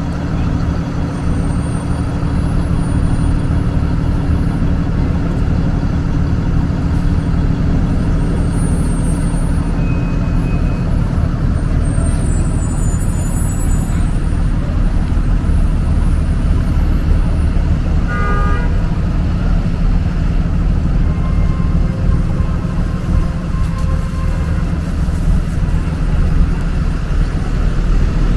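Street traffic with a heavy diesel vehicle, such as a bus or truck, running close by: a steady low engine rumble. A brief high tone sounds about two-thirds of the way in.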